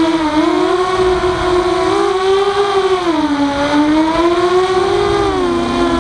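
Walkera F210 racing quadcopter's motors and propellers whining, heard from on board, the pitch rising and falling as the throttle changes in flight, with a deeper dip about three and a half seconds in and again near the end. Low wind rumble runs under it.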